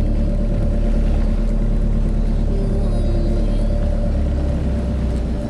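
Boat engine running steadily, a low rumble with a constant hum.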